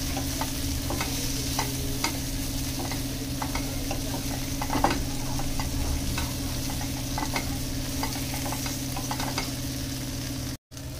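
Masala-stuffed okra sizzling in mustard oil in a stainless steel kadhai while a wooden spatula stirs it, with frequent short scrapes and taps on the pan over a low steady hum. The sound cuts out for an instant near the end.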